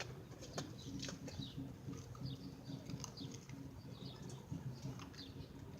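Faint scraping and light clicking of a spoon stirring a thick toothpaste-and-sugar paste in a bowl, with short squeaks scattered through, over a low steady hum.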